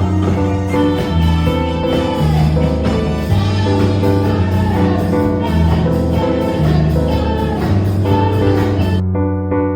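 Background music with layered held notes and a steady pulse; the upper register drops away suddenly about nine seconds in.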